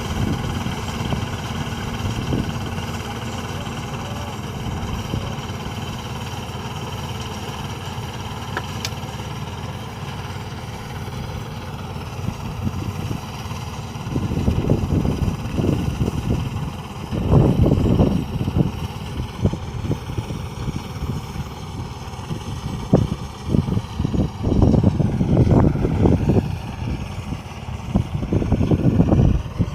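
Engine of a rice harvesting machine running steadily with a constant hum. From about halfway in, irregular low buffeting, like wind on the microphone, comes and goes over it.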